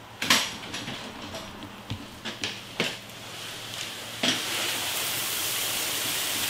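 A woven sack of pale ale malt rustling and knocking as it is lifted and handled, then from about four seconds in a steady hiss of malt grain pouring out of the sack into the mash tun.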